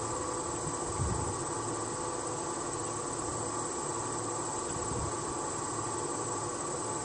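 Steady high-pitched insect chorus, crickets or similar, with a faint low hum underneath.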